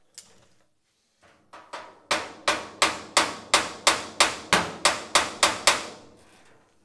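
Small hammer striking a steel bar braced against the edge of an old car's sheet-metal body panel to drive it into place. Two light taps come first, then about a dozen quick, hard blows at roughly three a second, each ringing briefly.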